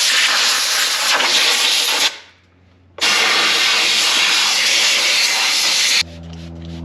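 Two long blasts of compressed air hissing from a nozzle as a part is cleaned, the first stopping about two seconds in and the second starting a second later; both cut off sharply. A quieter steady low hum follows near the end.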